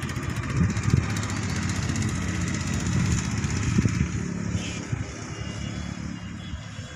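A small engine running steadily, easing off near the end.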